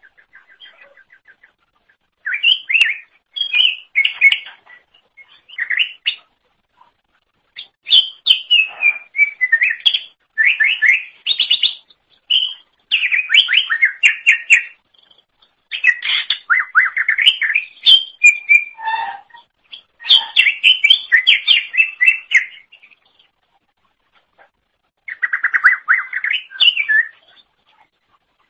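Greater green leafbird (cucak ijo) singing loudly: fast, varied runs of chirps, trills and whistles, in bursts of a second or two with short pauses and one longer pause near the end.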